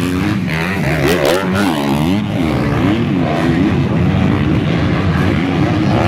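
250cc four-stroke motocross bike engines revving hard and backing off over and over, the pitch rising and falling about every half second as the riders work the throttle, several bikes overlapping.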